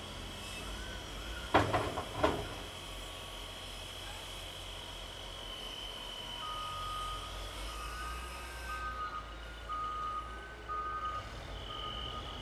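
Caterpillar wheel loader's diesel engine running, with two loud metal clanks close together about a second and a half in. From about halfway a back-up alarm beeps steadily, a little faster than once a second.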